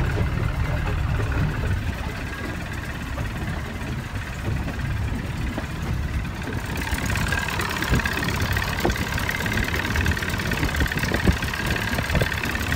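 A small boat's motor running steadily at low cruising speed, with a higher hum joining about halfway through. A few light knocks sound in the second half.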